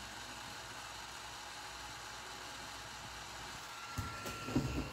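Frozen desktop PC running with a steady, noisy mechanical whir, which the title puts down to its cooler (fan) and the owner believes comes from the motherboard. A faint high whine joins near the end, followed by a few sharp knocks of handling.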